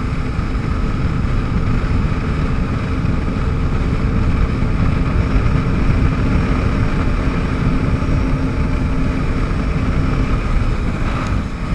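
Yamaha WaveRunner jet ski running at speed: a steady engine hum under heavy wind rush on the microphone.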